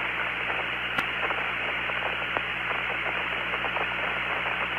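Steady hiss and low hum of the Apollo 17 lunar-surface radio channel, with faint scattered ticks and one sharp click about a second in.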